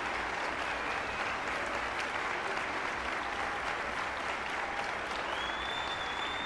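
Concert audience applauding steadily in a hall. A single high held whistle rises above the clapping near the end.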